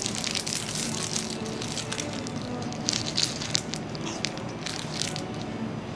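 Plastic snack wrapper crinkling as it is peeled open, then crunching bites into a crisp, thin Couque d'Asse wafer cookie, a dense run of crackly clicks throughout.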